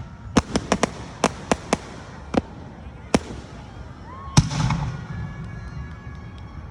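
Fireworks going off: a quick string of sharp cracks in the first two seconds, then single bangs spaced about a second apart. The loudest comes a little past four seconds in and is followed by a low rumbling echo.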